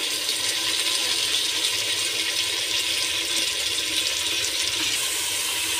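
Raw mutton sizzling in hot oil in an aluminium pressure cooker: a steady hiss.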